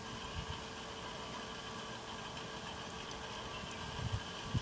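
Electric rotisserie motor humming steadily as it turns the chicken on the spit, with a few soft low thumps of wind on the microphone.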